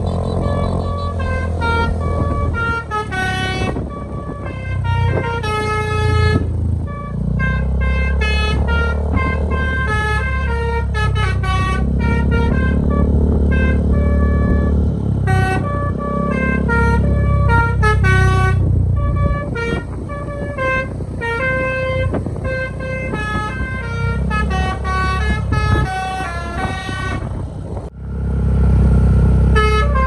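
Tour bus's Basuri multi-tone telolet horn playing a long, fast melody, note after note, over the low rumble of the bus's engine, with a brief break near the end.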